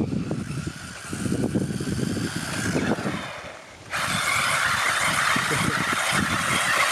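Wind buffeting the microphone, then about four seconds in a steady whirring hiss from the UDIRC Breaker 1601 Pro RC drift truck's brushless electric motor and its tyres on rough concrete close by.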